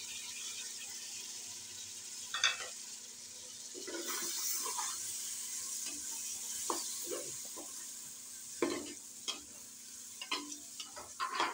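Chopped onions, tomatoes, garlic and ginger sizzling in hot oil in a metal pot, with a metal spoon scraping and clinking against the pot as they are stirred. The sizzle runs steadily, while the spoon strikes come every second or so, more often near the end.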